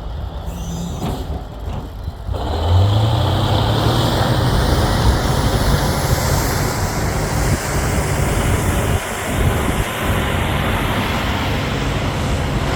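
Caterpillar D9L bulldozer's diesel engine, a Cat 3412 V12. About two seconds in it revs up and then runs loud and steady under load while the dozer pushes dirt.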